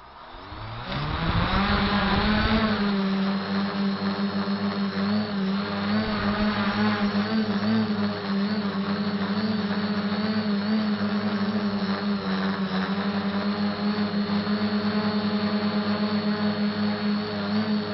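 SK450 dead-cat quadcopter's brushless motors and propellers spinning up over about the first two seconds, then a steady buzzing whine that wavers slightly in pitch as throttle changes during take-off and low flight.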